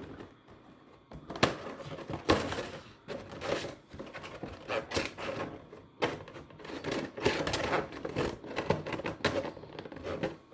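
Thin plastic panels of a flat-pack folding shoe rack being handled and folded, with repeated sharp clicks, snaps and plastic rattling from about a second and a half in.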